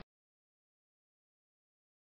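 Complete silence, with no sound at all.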